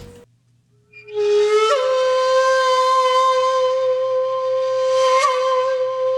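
Background music: after a brief gap, a single long held note with a slight slide up into it, sustained steadily.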